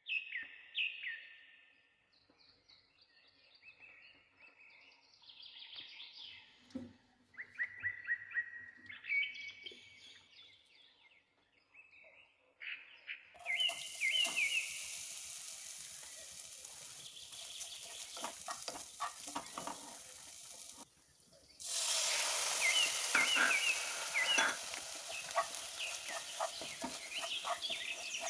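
Small birds chirping throughout. From about halfway, a steady hiss sets in, with scattered clicks and scrapes, as grated coconut is poured into a non-stick pan and stirred with a spatula. The hiss breaks off for a moment and comes back louder.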